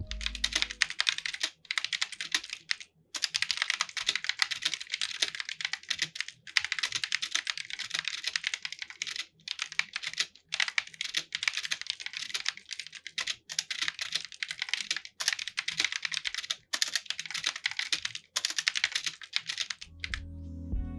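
Fast typing on a mechanical keyboard fitted with Digital Alliance's optical Outemu Blue switches, modified from clicky to linear by removing their metal click contacts. Dense runs of key clacks are broken by brief pauses every second or two.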